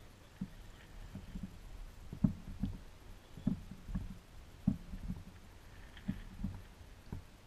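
Irregular low thumps and knocks on an aluminium fishing boat's hull, about one or two a second, some with a sharper click.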